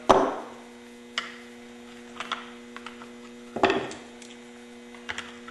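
Light clicks, taps and scraping of a screwdriver and pliers on a small diaphragm air pump's housing as its rubber diaphragm is worked off, with a louder rustle of handling about three and a half seconds in. Under it runs a steady low hum.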